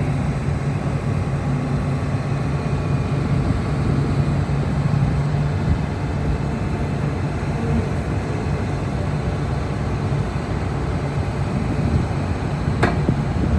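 Komatsu PC360LC-11 excavator's diesel engine running steadily with a low, even hum. A single short knock sounds near the end.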